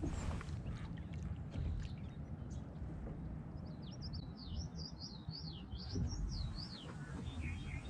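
A songbird singing a fast string of rising and falling whistled notes for about three seconds, then a quick run of short chips near the end, over a steady low rush of outdoor noise.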